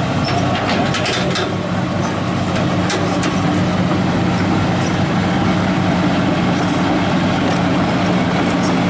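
Hitachi crawler excavator's diesel engine running steadily with a constant low hum, with a few faint clicks over it.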